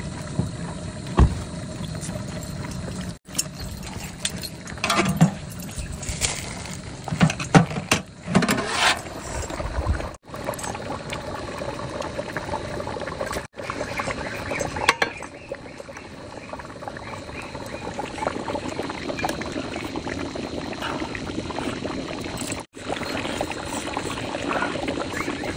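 Mutton stew bubbling and simmering in a large metal pot over a wood fire, with the clatter and scrape of a ladle against the pot several times in the first half.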